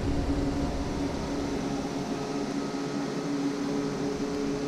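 Small electric motor humming steadily, with a held low tone and fainter overtones.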